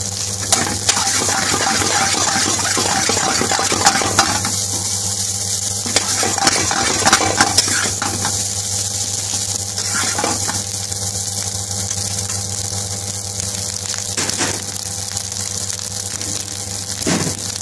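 A long metal spoon stirring and scraping rice and minced meat in a hot frying pan, with a steady sizzle and frequent clinks and knocks of the spoon against the pan, over a steady low hum.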